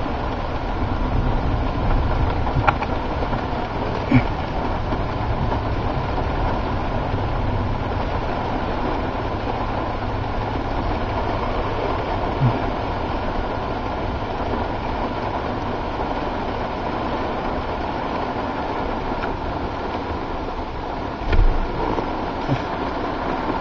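Steady rain and wind noise from a squall-line thunderstorm, with a low rumble underneath and a few brief sharp knocks, the loudest about 21 seconds in.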